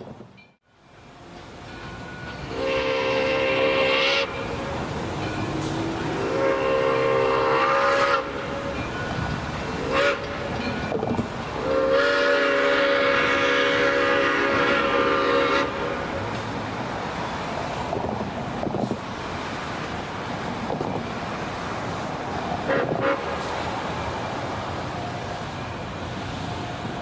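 Black River & Western 2-8-0 No. 60's steam whistle sounding a chord in the grade-crossing pattern: two long blasts, a short one, then a longer final blast. Under it the locomotive keeps up a steady rumble while working the train.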